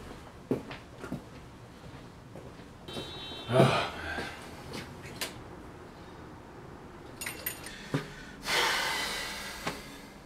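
Footsteps in boots crossing a room, then a deadbolt lock clicking and a front door being unlocked and pulled open, with a swish of the door near the end. A louder bump comes about three and a half seconds in.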